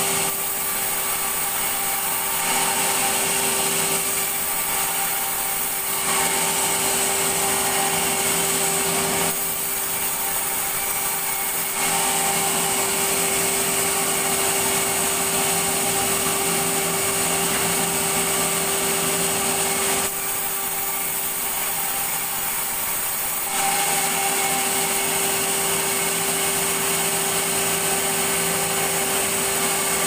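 Sawmill circular saw running steadily with a constant hum while planks are ripped on it. The cutting noise grows harsher for several seconds at a time as each board goes through, then eases for a few seconds while the blade runs free between cuts.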